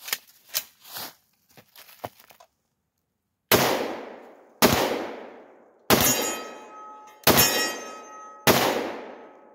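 Glock 20 pistol firing 10mm Auto rounds: five shots at a steady pace, about one every 1.2 seconds, each ringing out in a long echo. They start about three and a half seconds in, after a few faint clicks.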